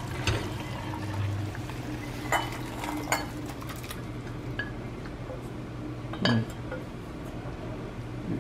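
Thick cooked kootu being scraped and poured from a stainless steel pan into an enamel bowl with a wooden spatula: soft sliding and plopping, with a few sharp clinks of pan and spatula against the bowl, the loudest about six seconds in. A steady low hum runs underneath.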